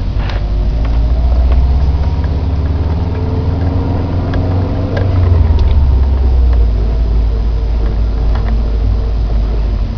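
2009 Subaru Impreza WRX STI's turbocharged flat-four engine running, its pitch rising and falling a little as engine speed changes, with a few light ticks. This is the weird noise the owner cannot identify.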